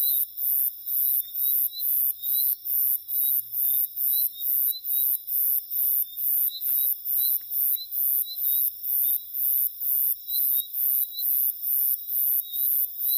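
Night insects in the forest chirping in a very high-pitched, even pulse, about two and a half pulses a second, over a steady high whine.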